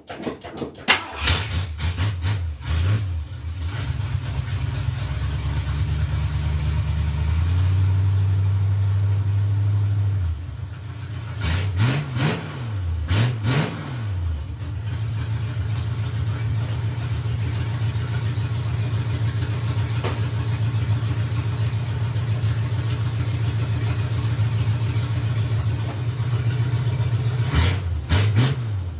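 1975 Ford F100's V8 exhaust through new long-tube headers: the engine starts, is blipped a few times, runs at a raised idle that drops about ten seconds in, is revved twice a couple of seconds later and once more near the end.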